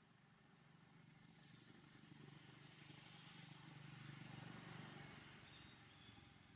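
Faint engine of a passing motor vehicle, growing louder to a peak about four seconds in and then fading.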